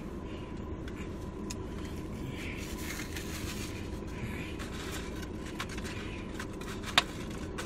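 Eating sounds: chewing and mouth clicks, with scattered small clicks and one sharper click about 7 seconds in, over a steady low background hum.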